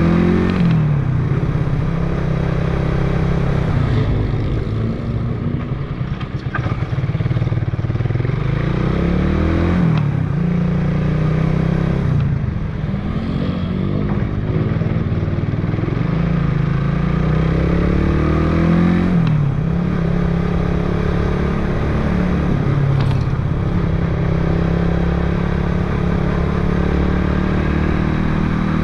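Motorcycle engine running under way as the bike is ridden, heard from on the bike. Its pitch climbs as it speeds up and drops when the throttle is eased, several times over.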